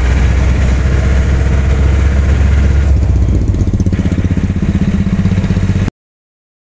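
Motorcycle engine running on the move, with a heavy low rumble that turns into a rapid, regular pulsing about three seconds in. The sound cuts off abruptly near the end.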